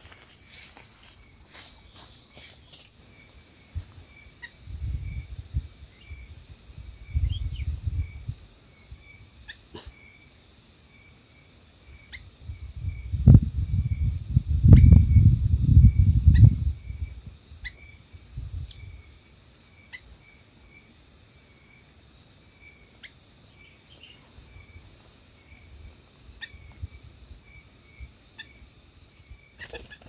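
Steady high-pitched insect drone with a faint regular chirping, typical of crickets and cicadas in a rural plantation. A low muffled rumble on the microphone comes a few times and is loudest about halfway through.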